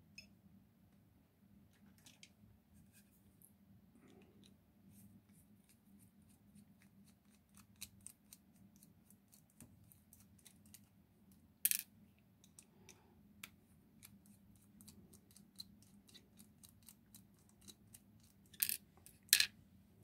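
Small metal clicks and scrapes as a screwdriver works on a Ruko 600 lock cylinder, with a few louder clacks: one about twelve seconds in and two close together near the end.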